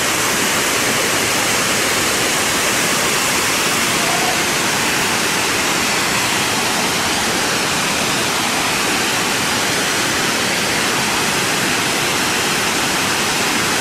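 Waterfall: a steady, unbroken rush of falling water at an even level.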